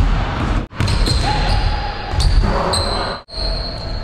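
Basketball bouncing on a hardwood gym floor during a pickup game. The sound cuts out abruptly twice.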